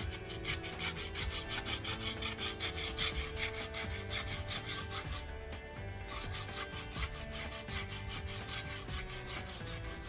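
80-grit sandpaper rubbed back and forth over the curb-rashed edge of a Tesla Model 3 aero wheel, in quick even strokes about five a second, with a short break a little past halfway.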